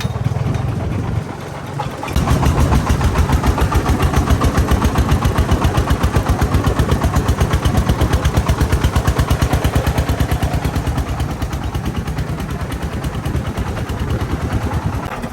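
The single-cylinder diesel engine of a Vietnamese công nông farm truck running with a rapid, even thumping, which becomes loud and strong about two seconds in.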